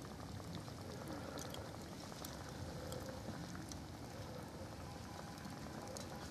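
Charcoal cooking fire, with a tin can heating over a small flame beside it: a steady low hiss with scattered small crackles and pops.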